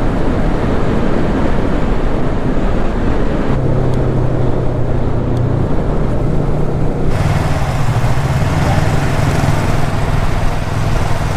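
Wind noise on the microphone of a Yamaha YZF-R3 sport bike riding at about 80 km/h; a few seconds in, as the bike slows toward 35 km/h, the wind eases and the steady hum of its parallel-twin engine comes through.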